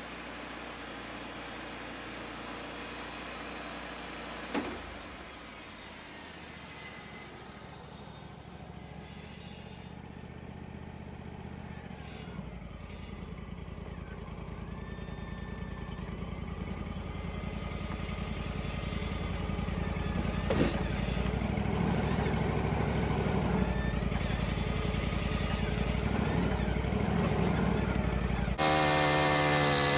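Mobile sawmill running, its engine and cutting sound growing steadily louder through the middle as the cut goes on. Near the end a louder engine with a shifting pitch cuts in suddenly.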